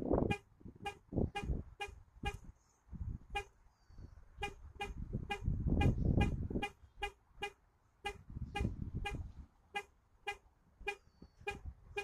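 The horn of a 2015 Chevrolet Cruze pulsing in short repeated honks, about two to three a second, because its car alarm has been set off. A low rumble swells under the honks about five to six and a half seconds in.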